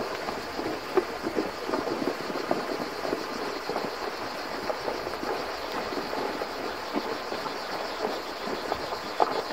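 Horses wading through a shallow river, their hooves splashing irregularly in the water over a steady watery hiss.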